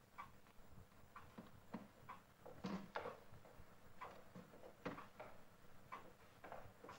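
A clock ticking about once a second in a quiet room, with a few louder knocks and shuffling sounds, the loudest about three seconds in.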